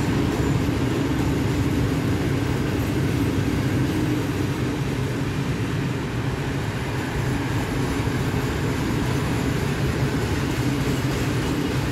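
Freight train of pear-shaped hopper wagons rolling past on the rails: a steady rolling rumble of steel wheels on track, even throughout.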